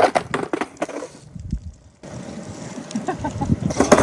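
Skateboard wheels rolling on concrete, with several sharp clacks of the board striking the curb and the ground.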